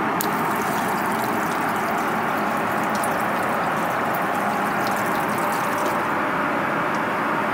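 Water from a lavatory sensor tap running and splashing into the washbasin, stopping about six seconds in, over the steady drone of an airliner cabin.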